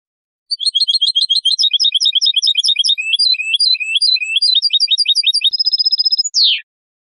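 European goldfinch singing a clean song. A fast run of high twittering notes and trills starts about half a second in. Near the end it closes on a held buzzy trill and a sharp falling note, then stops.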